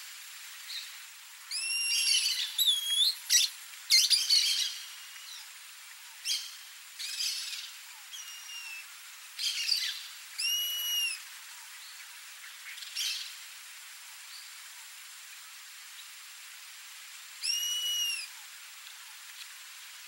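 Rusty-margined flycatcher calling: several whining calls, each rising then falling in pitch, mixed with short bursts of harsh chatter in the first half. One more arched call comes near the end.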